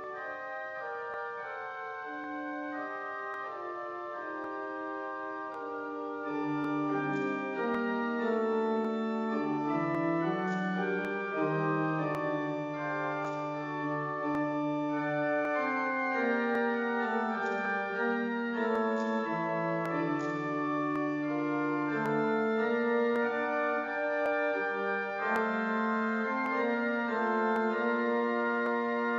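Church organ playing held chords. About six seconds in, low bass notes come in and the music gets louder.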